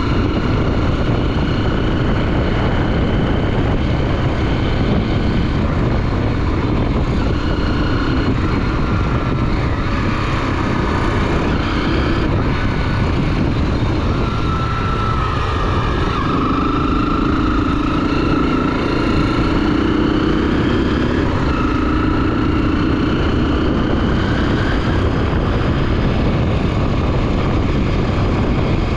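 Honda XR 250 Tornado's single-cylinder four-stroke engine running while riding, its pitch rising and falling with throttle and gear changes, over a steady rush of wind noise.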